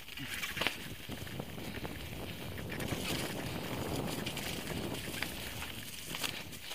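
Mountain bike riding down a rocky dirt trail: tyres rolling over dirt and stones, with scattered clicks and knocks from the bike jolting over the rough ground.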